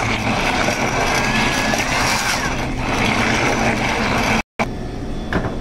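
Hand-held immersion blender running in a saucepan, its motor giving a steady whine as the blade churns thick salmon liver pâté smooth. The sound cuts off suddenly about four and a half seconds in.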